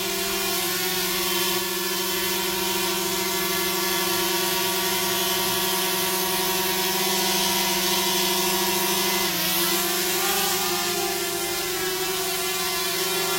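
Quadcopter drone's motors and propellers giving a steady high buzz, with a brief dip in pitch about nine seconds in.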